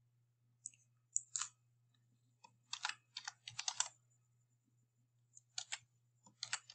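Typing on a computer keyboard: quick keystrokes in short runs of a few keys, with pauses between the runs.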